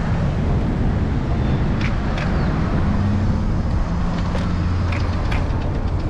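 City street traffic noise with a steady low rumble, picked up by a camera on a moving electric scooter's handlebars, with a few sharp clicks scattered through.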